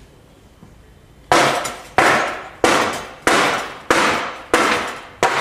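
Mallet striking a block of recycled hardwood to knock off waste wood: seven hard strikes in a steady rhythm, about one and a half a second, starting about a second in, each ringing briefly.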